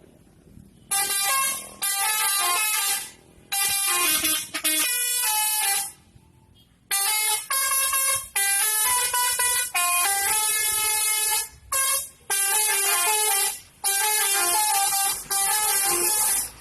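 Telolet horn of a Mahessa bus, its several air-horn trumpets sounding together in a tune of stepping notes. It plays in a string of bursts with short breaks, starting about a second in.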